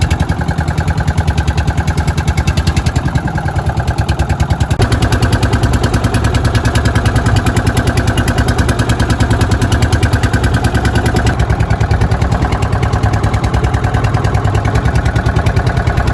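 Small petrol engine running with a fast, even putter from its exhaust; its pitch steps up about five seconds in and shifts again near eleven seconds.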